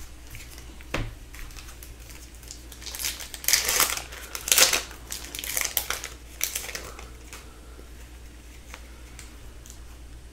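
Silver foil wrapper of an Upper Deck hockey card pack crinkling as it is torn open and crumpled, a burst of rustling about three to seven seconds in. A single knock about a second in.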